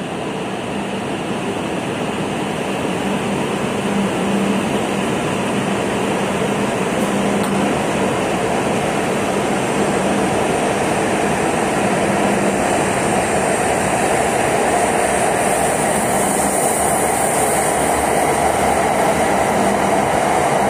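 E5-series Hayabusa Shinkansen pulling out of the station and gathering speed: a steady rush of running noise that grows louder as it speeds up. A low hum is strongest in the first half, and a higher hiss builds toward the end.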